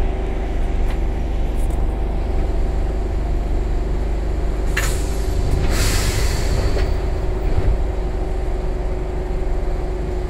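Enshu Railway 1000 series electric train running, heard at the gangway between cars: a steady rumble of wheels on rail with a hum that holds one pitch, and a brief rushing hiss about halfway through.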